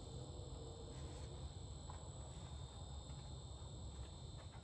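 Faint steady background noise: a low hum with a thin, high, steady tone over it, and no distinct event.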